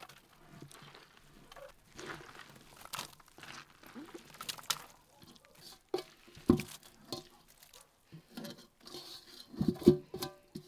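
Shredded cabbage and carrot for sauerkraut being scraped by hand out of an enamel basin into a wooden barrel: wet rustling and crunching, with sharp knocks, the loudest about six and a half and ten seconds in, each ringing briefly.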